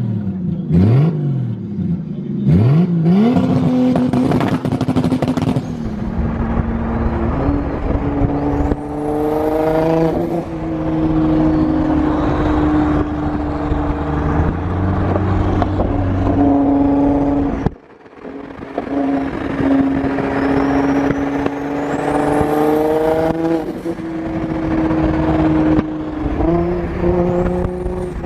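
Supercar engine revving hard: a few sharp throttle blips that rise and fall quickly near the start, then long stretches of the engine running at high revs that climb in pitch now and then. The sound breaks off suddenly about two-thirds of the way through and then picks up again.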